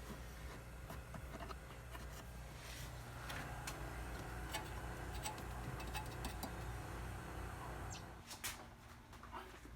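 Faint scattered clicks and light handling noises over a low steady hum, with a slightly louder rustle from about three seconds in until near the end.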